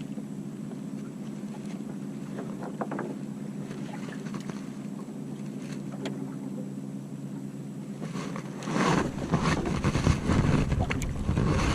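Small fishing boat's engine running steadily, a low even hum. Near the end, gusts of wind buffet the microphone, adding a louder rumble.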